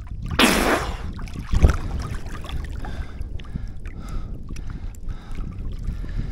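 A short burst of splashing, pouring water about half a second in, then a single thump about a second later, over a steady low rumble.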